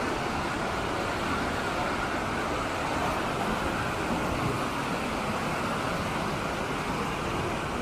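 Swollen, fast-flowing mountain river rushing over rocks: a steady, strong sound of whitewater.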